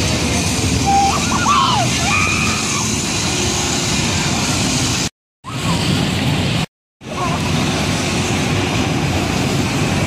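Sizzler scrambler ride running: a loud, steady rumble and whoosh of the machinery as the cars swing past, with a few short high cries about a second in. The sound cuts out briefly twice, around five and seven seconds in.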